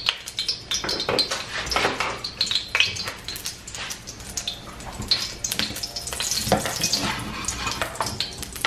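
Sunflower oil heating in a non-stick wok, crackling with irregular small pops and spits as it gets hot enough to fry meat.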